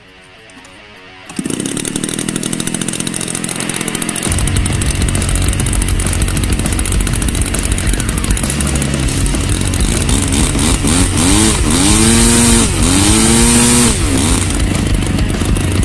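Stinger Engines 125cc two-stroke gasoline twin running on a large RC airplane and spinning its propeller. It comes in about a second in, grows louder a few seconds later, and near the end its pitch rises and falls twice.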